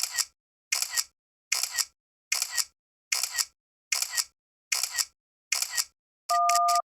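Camera-shutter 'take photo' sound effect played eight times, evenly about 0.8 s apart. Near the end a steady two-tone beep sounds for about half a second, the 'emergency' sound effect, while the shutter clicks come much faster.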